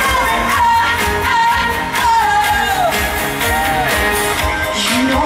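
Live pop concert heard from within the crowd: a woman sings a gliding melody over a band with a steady beat, played loud through a large stadium PA.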